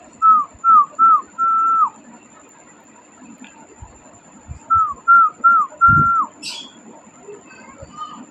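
A person whistling the same call twice: three short falling notes, then a longer held note that drops away at its end.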